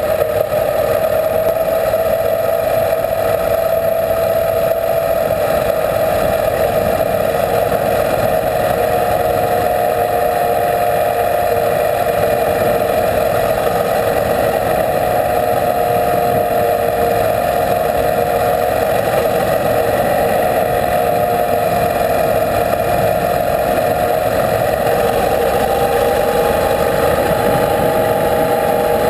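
Motorcycle engine running steadily at cruising speed, its hum drifting slightly in pitch, over steady tyre and wind noise from riding a gravel road.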